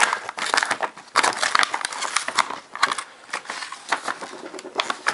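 A taped yellow paper mailer envelope being pulled and torn open by hand: irregular paper crinkling, rustling and tearing.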